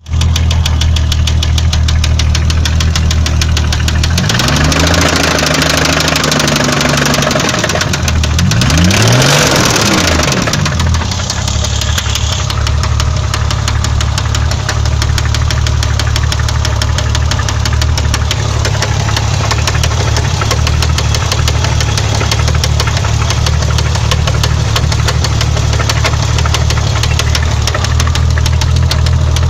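BMW M20B20 2.0-litre straight-six running with a steady, rapid knock. It is revved and held for a few seconds about four seconds in, then blipped a couple of times around nine seconds, and idles for the rest. The knock is not valve noise but a spun No. 6 bearing shell from oil starvation.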